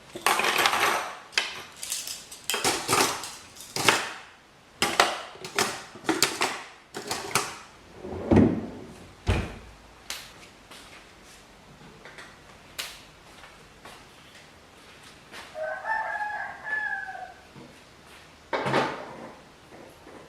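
A run of short rustling and knocking noises over the first eight seconds or so. A rooster crows once, about sixteen seconds in, and there is one more short noise near the end.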